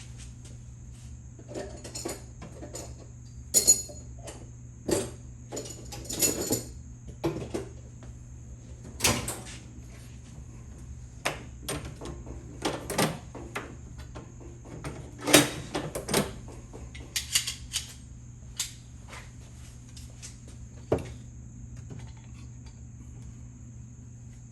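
Small steel ratchet parts being handled on a workbench: irregular clicks, clinks and knocks of metal against metal and against the bench, the sharpest about four seconds in and again midway, over a steady electrical hum.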